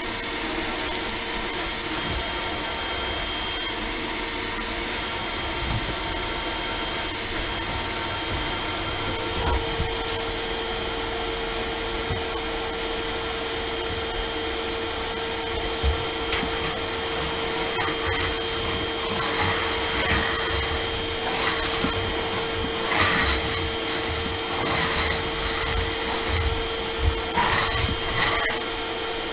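Porter-Cable shop vac running steadily as its hose sucks up dirt and debris from the boat's floor. From about halfway in, irregular crackles and clicks come through as debris is drawn up the hose.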